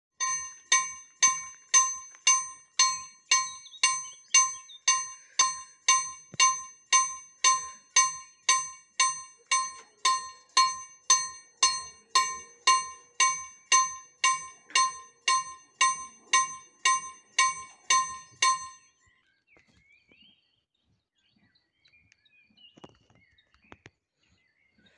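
Level crossing warning bell ringing in a steady series of metallic strikes, just under two a second, warning of an approaching train; the ringing stops abruptly about three quarters of the way through, leaving faint outdoor sounds.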